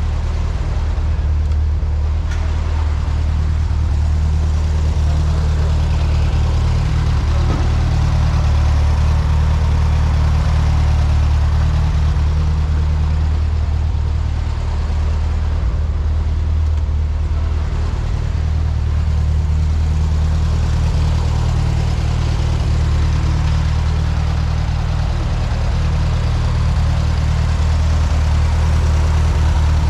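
Air-cooled flat-four engine of a 1970 VW Beetle idling steadily.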